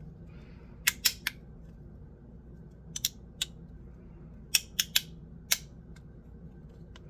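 Metal-and-resin bean slider fidget toy worked back and forth in the hand: sharp clicks as its halves slide and snap into place, mostly in quick runs of two or three, coming every second or two.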